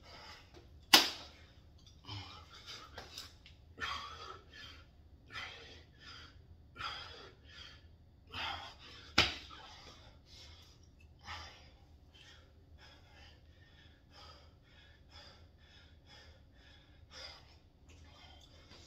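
A man breathing hard from exertion during a pull-up, push-up and squat workout, in quick breaths every half second to a second that thin out in the last several seconds. Two sharp knocks, about a second in and about nine seconds in, are the loudest sounds.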